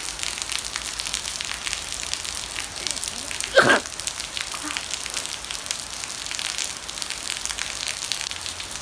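Steady rain falling in a garden, a dense patter of drops, with one brief louder sound about three and a half seconds in.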